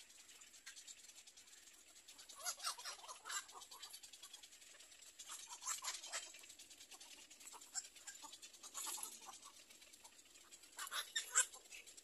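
Little egret chicks in the nest giving short, scratchy chittering calls in clusters every few seconds, loudest near the end.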